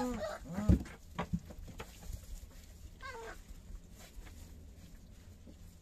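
Three-week-old puppies whimpering in a straw-bedded whelping box: short, high, falling cries just after the start and again about three seconds in. A sharp thump comes just under a second in.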